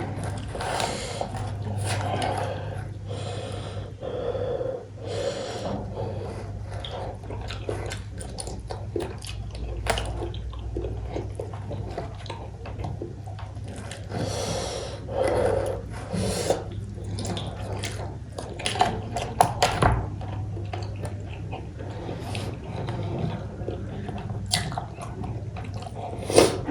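Close-up eating sounds of cooked goat head meat being chewed: wet chewing, smacking and squishing in short irregular bursts over a steady low hum.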